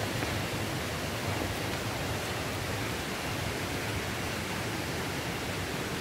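Steady rushing of water from a waterfall, an even hiss with no break or change.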